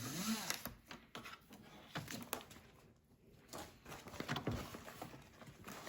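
Plastic vacuum-sealer bag rustling and crinkling as a brisket is worked into it, with scattered light taps and knocks of handling.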